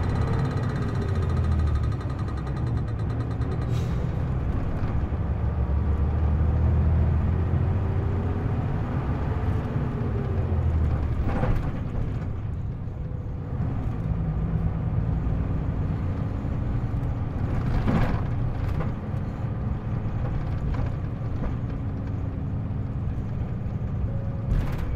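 Diesel engine of an Isuzu U-LV324K city bus heard from inside the bus on the move, revving up and dropping back with gear changes in the first half, then running more steadily. About four short sharp knocks are spaced through it.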